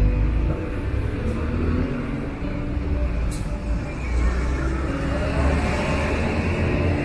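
Motor traffic on a city street: a vehicle engine running close by with a deep, steady rumble over the general street noise. There is one short tick about three seconds in.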